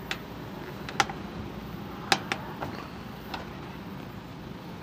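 Plastic front bumper cover clicking and knocking as its side is pressed by hand over the mounting bracket: a handful of sharp clicks, the strongest about a second in and just after two seconds.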